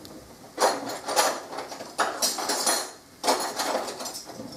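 Kitchen utensils and cookware clattering and scraping in three short bursts, each under a second long.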